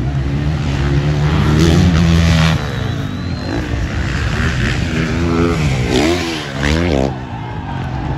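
250cc motocross bikes racing past, engines at high revs. The engine note is loudest and steadiest for the first two and a half seconds, then revs rise and fall quickly between about five and seven seconds in as riders work the throttle.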